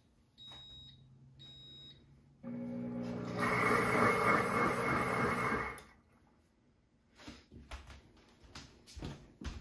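Pampered Chef Deluxe Cooking Blender starting its heated wash cycle: two short electronic beeps, then the motor spins the soapy water, starting with a hum and then whirring loudly for about three seconds before stopping.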